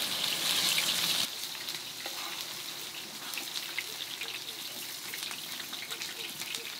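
Food frying in hot oil: a steady crackling sizzle that is louder for the first second or so, then settles to a lower, even crackle.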